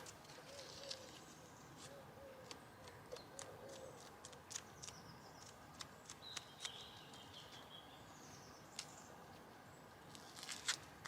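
Faint outdoor quiet with distant birds calling now and then, and scattered small clicks and rustles.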